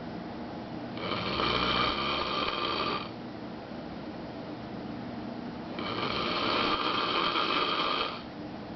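A man snoring really loud: two long snores of about two seconds each, roughly five seconds apart, with quieter breathing sound between them.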